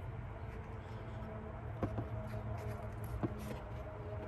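Three short light clicks from long-reach hose-grip pliers and a spring hose clamp being worked onto a rubber PCV ventilation hose, two close together near the middle and one more near the end, over a steady low hum.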